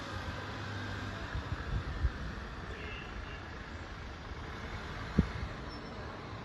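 Street traffic: car engines running at low speed with a steady hum of road noise, and a single sharp thump about five seconds in.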